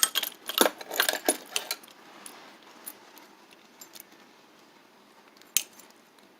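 A bunch of keys jangling and clinking as it is handled, busiest in the first couple of seconds, then a few light ticks and one sharp click about five and a half seconds in.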